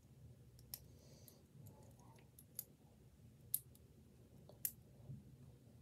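Lego bricks being handled and pressed together: a handful of faint, sharp plastic clicks scattered over several seconds, with quiet room tone between them.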